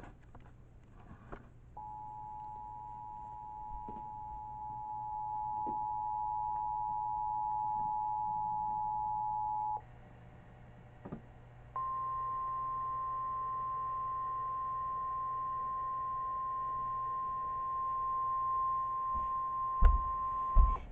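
Emergency alert tones from a weather radio: the two-tone EAS attention signal held steady for about eight seconds, then, after a brief pause of radio hiss, the single steady NOAA Weather Radio warning alarm tone for about nine seconds, announcing an incoming warning. Two thumps just before the tone ends.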